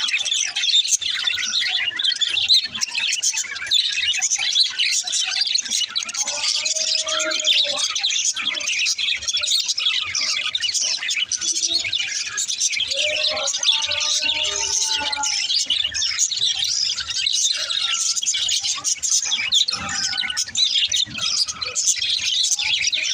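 Budgerigars chirping and chattering without pause, a dense flurry of high chirps, with a few lower, drawn-out warbling calls about a third of the way in and again around the middle.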